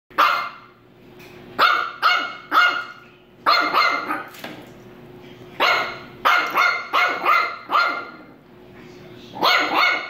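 French bulldog puppy barking repeatedly in quick runs of two to five short, sharp barks, about seventeen in all, with brief pauses between runs.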